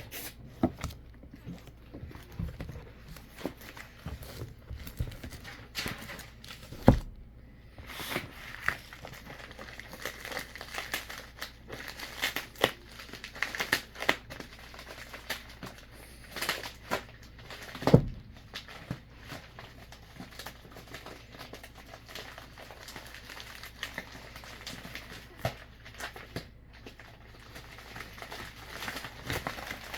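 Packing material rustling as comic books are unwrapped by hand, with irregular clicks throughout and two sharp knocks, one about seven seconds in and one about eighteen seconds in.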